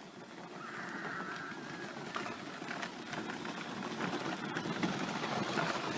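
Electric ride-on toy quad rolling over gravel: a steady crunching noise of its plastic wheels on the stones.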